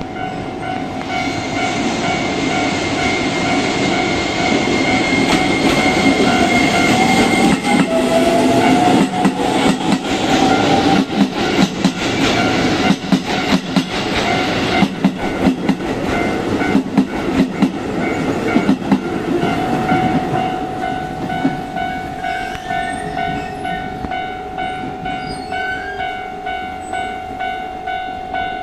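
Keisei 3000 series electric train pulling away and passing close by. It grows louder and is loudest about midway, with a rising whine from the motors and wheels clicking over rail joints. A level crossing warning alarm rings steadily throughout.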